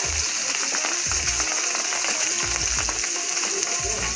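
A seasoned, flour-coated fish fillet sizzling steadily in hot oil in a frying pan, over background music with a repeating bass line.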